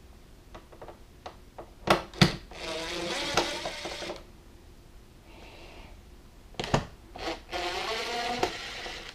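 DeWalt cordless driver backing out small Phillips screws: two runs of the motor whine, each about a second or two long, one about two seconds in and one near the end. Sharp clicks come just before each run.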